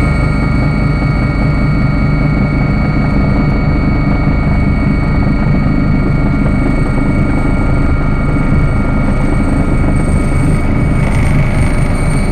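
Helicopter heard from inside the cabin on its landing approach: a loud, steady rotor and engine drone with several steady high whines over it.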